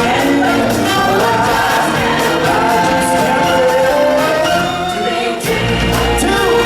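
Live stage music: a choir of voices singing over a band, loud and steady, with a strong bass coming in about five and a half seconds in.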